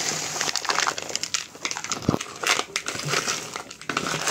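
Plastic scoop scraping and stirring coarse, gritty potting soil in a plastic basin: a continuous crunching, rustling scrape of soil and small chunks of rock. A dull knock comes about two seconds in.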